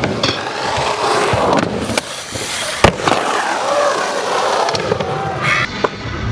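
Skateboard wheels rolling over rough concrete, with sharp cracks of the board hitting the ground; the loudest crack comes a little under three seconds in.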